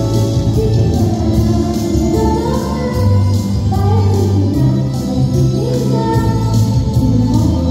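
A young girl singing a song into a microphone, amplified, over a backing track with a steady beat and sustained low accompaniment notes.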